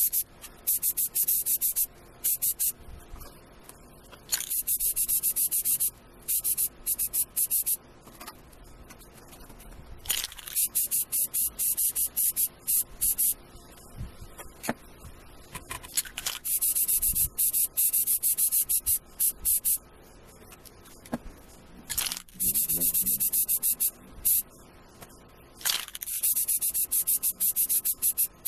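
Aerosol can of gloss protective enamel spray paint hissing in repeated bursts of one to three seconds, with short pauses between, as green coats go onto the parts.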